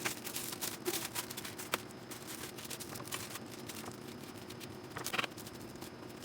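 Faint scattered clicks and rustles of objects being handled, a little louder about five seconds in, over a low steady hum.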